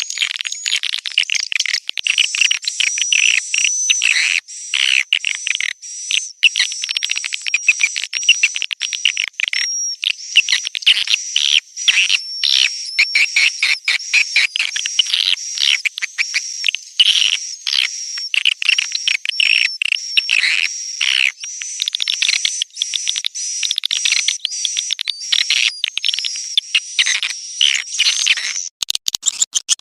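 Swiftlet lure call for chicks: a dense, high-pitched twittering of rapid chirps with a thin whistling tone running through it. It cuts abruptly about a second before the end to an evenly repeating clicking pattern.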